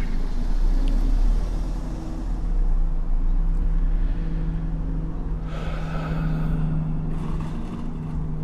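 Street traffic: a steady low engine hum from a vehicle nearby, with a broader swish of a car going by about five and a half seconds in.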